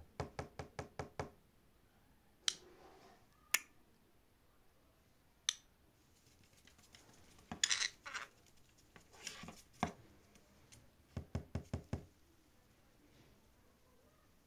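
Fingertips tapping on a hard dresser top in quick runs of about six taps, one just after the start and another about 11 seconds in, with a few single clicks in between. Two short, rougher scratchy noises come in the middle.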